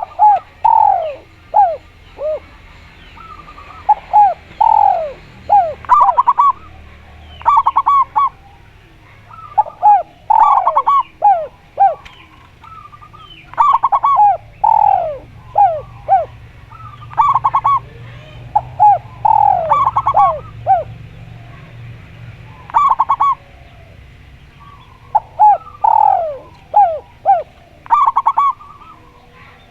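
Caged doves cooing, a Javan spotted dove and a zebra dove. They call in repeated bouts of short falling coos and quick runs of clipped, rattling notes, every couple of seconds.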